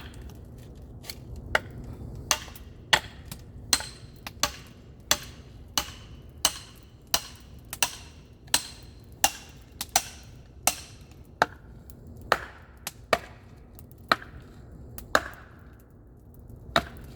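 A blade chopping repeatedly into a very tough, knotty piece of firewood to split it: about twenty sharp strikes, roughly one every 0.7 seconds, with a short pause near the end.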